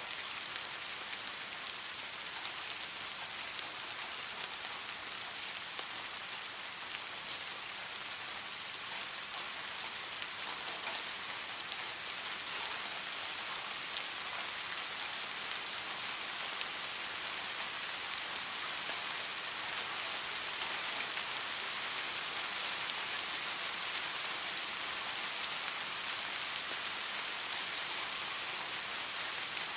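Steady rain falling on a surface, an even hiss with many small drop patters.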